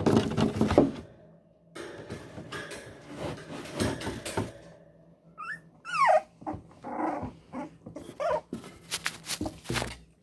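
Month-old Cavalier King Charles spaniel puppies scuffling and scrabbling close to a microphone on the floor, with one short falling whine about six seconds in and a few small cries. A cluster of sharp knocks comes near the end as the phone is handled.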